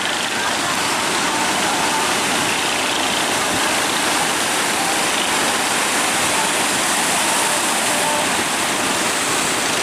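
Steady rushing roar of big sea waves breaking, an even noise with no pauses.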